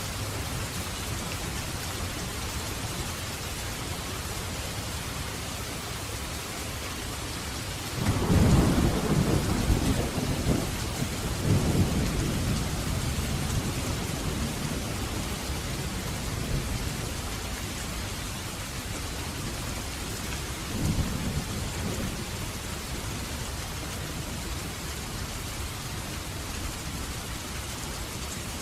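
Steady rain falling, with a clap of thunder breaking about eight seconds in and rumbling on for several seconds, then a shorter, fainter rumble about twenty seconds in.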